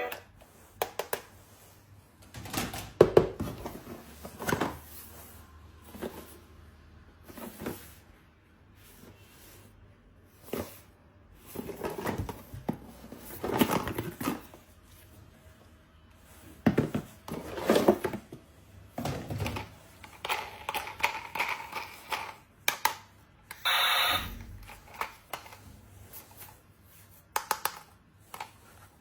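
A toy and its packaging being handled and unboxed: irregular clicks, knocks and rustles of small plastic parts, with short gaps between them.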